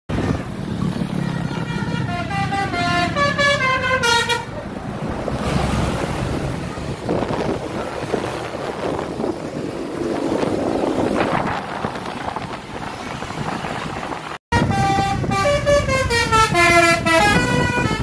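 A bus's multi-tone "telolet" musical horn playing a quick run of notes that step down in pitch, about two seconds in and again near the end after a brief cut. Steady road and traffic noise fills the time between.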